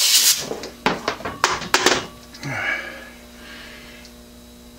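Insert parting tool cutting into hard steel hex stock on a lathe turned by hand: a short scraping hiss at the start, then several sharp metallic clicks between about one and two seconds in.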